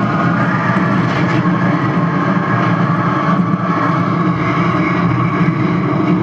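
Loud, steady droning rumble of a storm-wind sound effect for the tornado scene.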